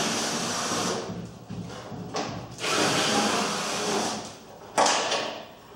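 A tool unfastening the bolts along the top of a VAZ-2110's front wing as the wing is taken off. It comes in two stretches of rasping noise, the second starting about two and a half seconds in, with a sharp knock near the end.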